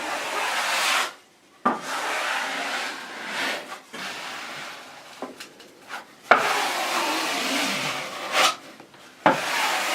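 Flat trowel scraping over Kerdi membrane, pressing the sheet into the thinset and squeezing out the excess, in a series of long scraping strokes a second or two each with short breaks between them.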